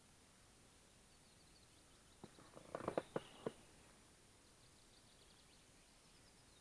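Faint, distant small birds chirping and trilling over a hushed lake, with a quick cluster of five or six sharp knocks and clicks in the middle.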